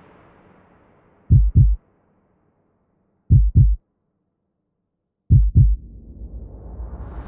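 Slow heartbeat sound effect: three double thumps (lub-dub), about two seconds apart, with the background sound faded away. From the third beat a rising wash of noise swells back in.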